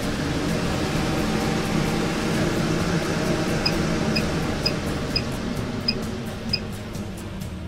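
MaxxAir roof vent fan running: a steady rush of moving air with a low hum. A series of short high beeps comes about every half second in the middle. The rush eases off near the end.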